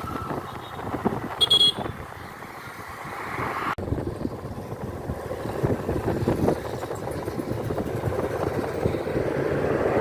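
Engine and road noise of a moving vehicle, heard from on board, steady throughout and growing louder toward the end. A short high beep comes about a second and a half in, and the sound drops out for an instant just before four seconds in.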